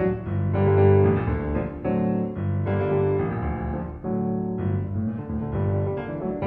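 Background piano music, slow sustained chords that change every second or two.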